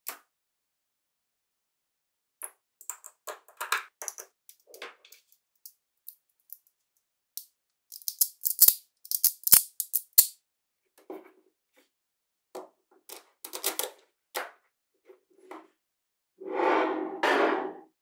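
Small magnetic balls clicking and snapping together as they are handled, in scattered clicks with a cluster of sharp, loud snaps in the middle. Two brief rattling bursts of magnet balls come near the end.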